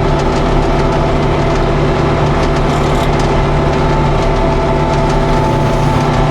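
Tractor engine and a Hesston 1265 hydro-swing swather running steadily while cutting hay, a constant machine hum with several steady tones.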